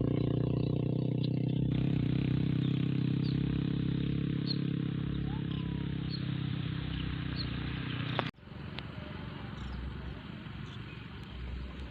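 An engine idling steadily, then stopping abruptly about eight seconds in. Faint outdoor background with a few short bird chirps is left behind.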